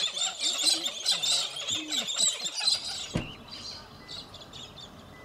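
Galahs calling in a gum tree: a dense run of quick, high calls. About three seconds in, the calls break off suddenly, leaving quiet open bush with a few faint distant bird calls.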